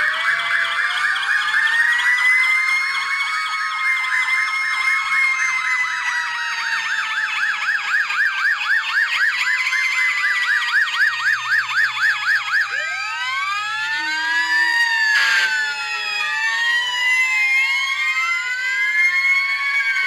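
Fire engine sirens sounding together: a fast warbling yelp for the first dozen seconds, then slower overlapping rising and falling wails.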